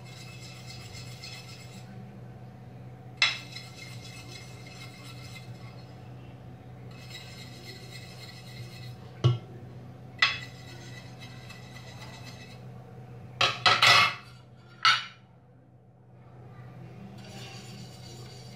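Oil being brushed onto metal idli mould plates: several spells of soft brushing strokes on the metal, with sharp clinks as the plates are handled, including a quick run of clinks about three-quarters of the way through. A steady low hum runs underneath.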